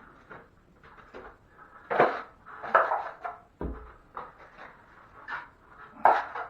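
Drywall taping knife scraping against a mud pan and spreading joint compound in irregular strokes, with a few sharper knocks of the knife on the pan about two seconds in, near three seconds and near the end.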